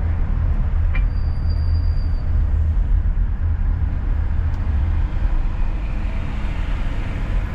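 Steady low rumble of a car driving, road and engine noise heard from inside the vehicle, with a brief click about a second in and a short faint high tone just after.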